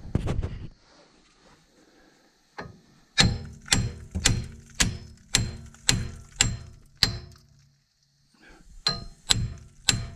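Hammer blows ringing on the seized front wheel hub of a 2016 Nissan Rogue, being knocked to free it: a run of about eight strikes at roughly two a second, then a short pause and three more near the end. The hub is stuck and won't break loose.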